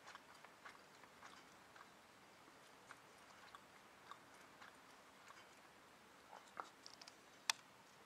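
Near silence with faint, irregular clicks and nibbling ticks, and one sharper click near the end.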